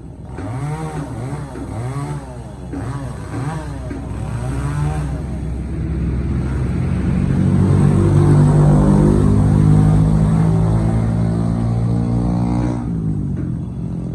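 Chainsaw engine revving in quick repeated throttle blips, then held at full throttle for several seconds before dropping back to idle near the end.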